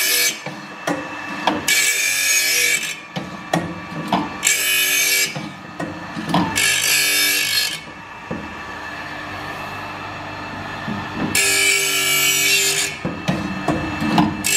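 Diamond grinding wheel of a carbide saw-blade sharpening machine grinding the carbide tips of a circular saw blade, in four hissing passes of about a second each. Clicks and a steady motor hum fill the gaps as the blade is moved on to the next tooth. Many of the blade's carbide tips are broken off, so the teeth are being ground back hard.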